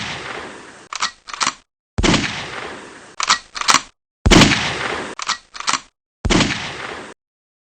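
Gunshot sound effect repeated four times, about two seconds apart: each shot fades out over about a second and is followed by two quick sharp clicks, with dead silence in between.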